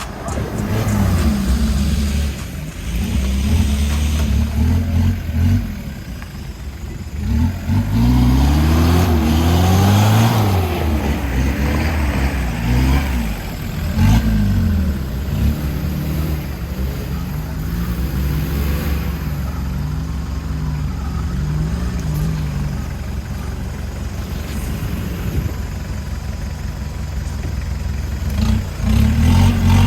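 Off-road vehicle's engine revving and easing off again and again, its pitch rising and falling, loudest about eight to eleven seconds in.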